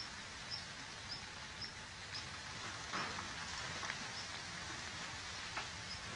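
A rabbit digging in loose garden soil with its front paws, giving soft, scattered scrapes of earth. Behind it, a small bird or insect repeats a short high chirp about twice a second, stopping after about two seconds, over a steady outdoor background.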